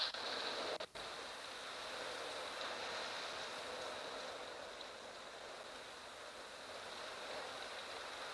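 Steady hiss of strong wind blowing through savannah grass and bush, with a faint steady high-pitched tone running under it. The sound cuts out briefly about a second in.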